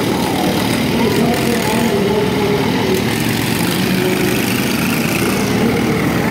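Several small riding-mower engines running together in a steady, loud din, with voices mixed in.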